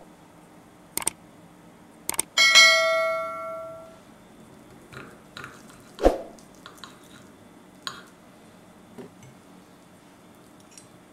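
Two clicks, then a bell ding that rings out and fades over about a second and a half, the sound effect of a subscribe-button animation. After it, a knife and fork clink and scrape on a glass plate, with a knock about six seconds in.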